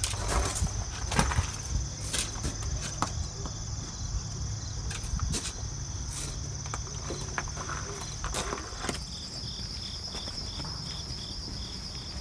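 Footsteps on a woodland trail with scattered sharp clicks, over a steady high-pitched insect drone; from about nine seconds in a second insect joins with an even chirp of about three pulses a second.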